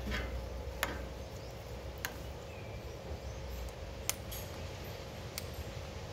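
Ringneck parrot biting and pecking at a guava: about five sharp, separate clicks of its beak, spaced irregularly a second or more apart.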